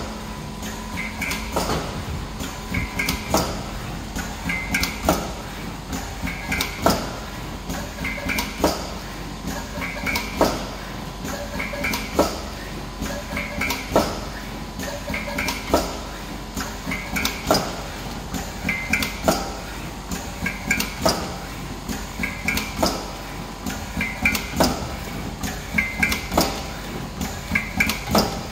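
Automatic tea-bag packing machine running: a steady motor hum under a regular cycle of metallic clacks and clicks that repeats about every second and three-quarters, some 34 cycles a minute, one bag filled and sealed per cycle.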